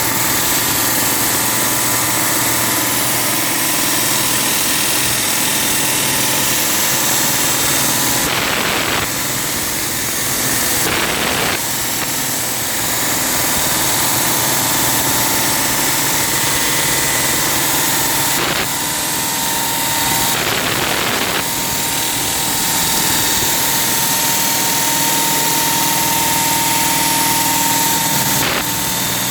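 Petrol-engined concrete cutting saw running steadily while cutting concrete, with a held whine and a few brief dips in its note as the load changes.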